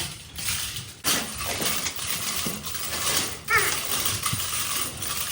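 Manual metal lathe turning steel: the cutting tool scraping on the spinning workpiece with a steady metallic hiss and small clinks of metal chips.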